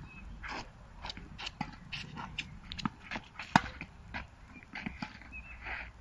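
Tennis ball struck by rackets and bouncing on a hard court: a string of sharp pops at irregular spacing, the loudest about three and a half seconds in.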